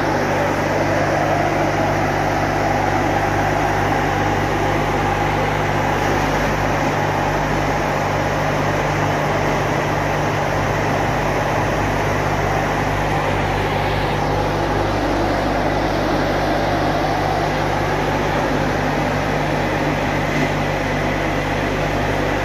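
Automatic car wash's air dryer blowers running, a steady blowing noise with a low hum underneath.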